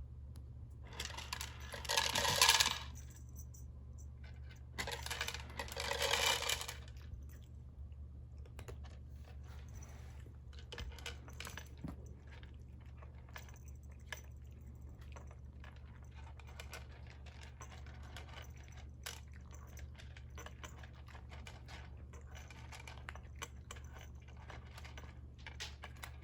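Automatic pet feeder dispensing dry kibble into its bowl in two short pours a few seconds apart, followed by a cat crunching the kibble with many small scattered clicks. A steady low hum runs underneath.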